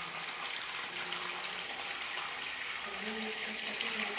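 A stream of water pouring and splashing onto a soaked, foamy wool rug, a steady rush of water. A faint low hum runs under it.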